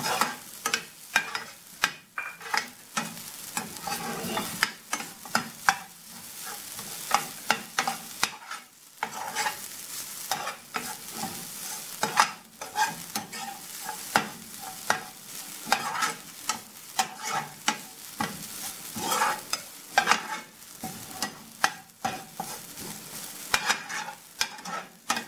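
Steel spoon stirring and scraping grated coconut as it roasts in a little ghee in a frying pan: frequent irregular clicks and scrapes of the spoon on the pan over a light sizzle, with a short lull about nine seconds in.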